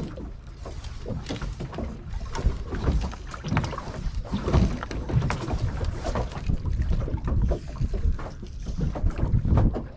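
Water slapping and knocking irregularly against a small boat's hull, with wind rumbling on the microphone.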